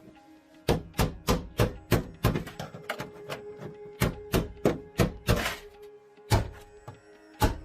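A series of sharp knocks, about three a second in runs, with a short gap in the middle and two more blows near the end, over background music.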